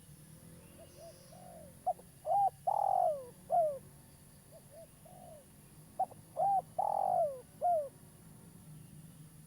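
Spotted dove cooing: two song phrases, each a few soft short coos followed by louder, slurred, falling coos.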